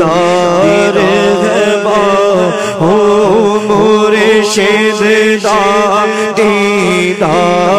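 A solo voice singing a devotional naat in long, wavering, ornamented runs over a steady low held drone.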